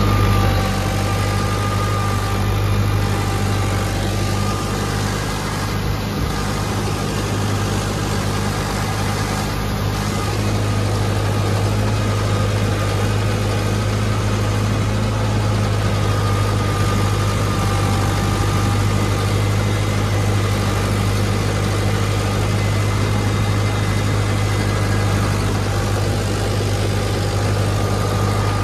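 Mahindra 585 tractor's diesel engine running steadily with a constant low drone and a faint whine, while the tractor pulls a rotavator through a flooded paddy field during puddling.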